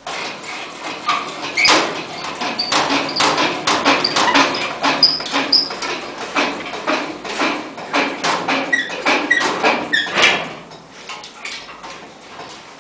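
Toothed steel rail of a plastering machine being pushed and aligned upright: a dense run of metal knocks and clatters with short high squeaks, dying down about ten seconds in.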